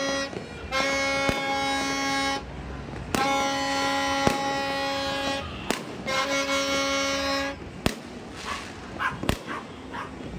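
Long, steady horn blasts sounding three times, each one to two seconds long, over scattered New Year's fireworks bangs and crackles.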